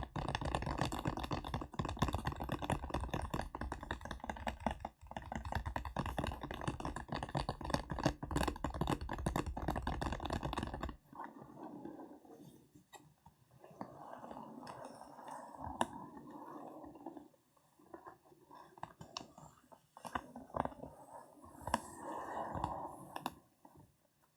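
ASMR fingertip tapping: a fast, dense run of taps that stops abruptly about halfway through. After that come quieter, softer crackling and rubbing sounds with scattered single clicks.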